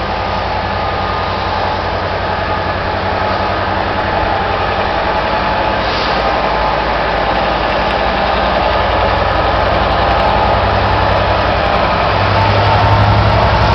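Class 67 diesel-electric locomotive's two-stroke V12 engine working steadily as it pulls a train out, growing louder as it approaches, with its low note strengthening near the end.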